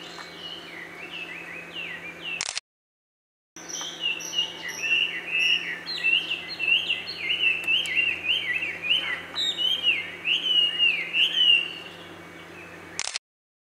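Common kingfishers calling: a rapid run of short, shrill whistled notes, each falling in pitch, several overlapping at times. The sound cuts out completely for about a second, twice.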